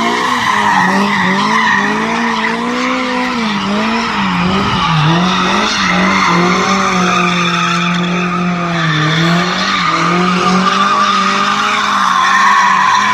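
Cars drifting on asphalt, a BMW M5 and a Tofaş Murat 131: an engine revs up and down without a break, over a continuous squeal and skid of sliding tyres.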